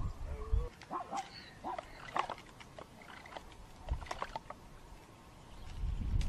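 A scattering of short animal calls, some rising in pitch, with a few low thumps, over a quiet background.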